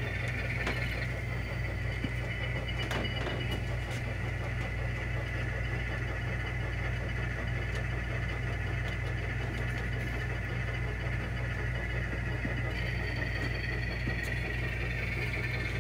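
Model railroad train running slowly: a steady engine-like hum with a higher whine that shifts in pitch near the end.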